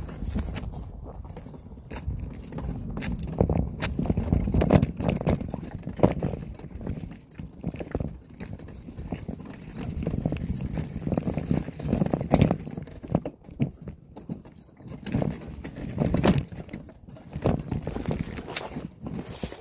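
Irregular crunching, clicking and knocking of movement over a dry dirt and rock trail, under a low rumble that swells and fades every second or two.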